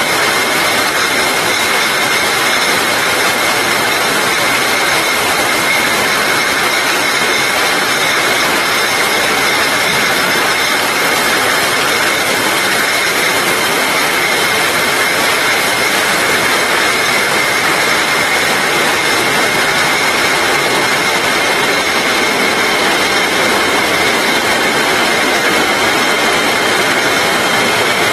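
Rotary bottle labeling machine and its bottling line running, a loud, steady machine noise with a constant high whine.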